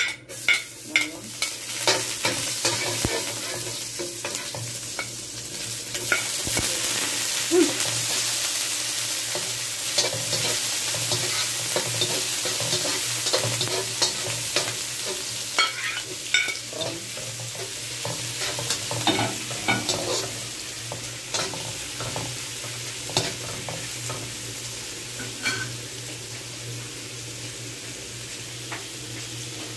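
Garlic, onion and shrimp sizzling in hot oil in a wok, the sizzle starting as the garlic is tipped in. A metal spatula scrapes and taps against the pan at irregular moments as the food is stirred.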